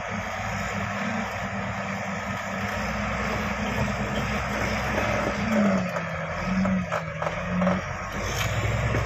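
Diesel engine of a heavy earthmoving machine running under load, its pitch dipping and rising a few times about halfway through.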